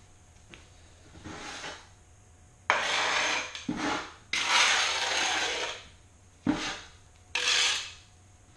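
A hand tool scraped in about six strokes across a small cut piece of porcelain tile, the longest and loudest strokes in the middle and a short one and a longer one near the end.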